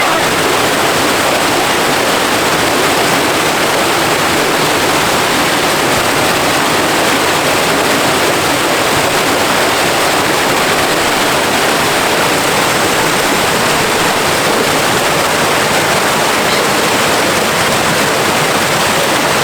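Loud, steady rush of flowing water, like a fast creek or small falls close by.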